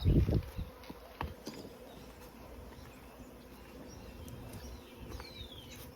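Honeybees buzzing in a steady hum at a hive being worked, after a few loud knocks right at the start.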